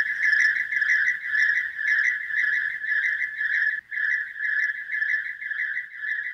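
A high animal trill pulsing rapidly, several pulses a second, broken once by a brief gap about four seconds in.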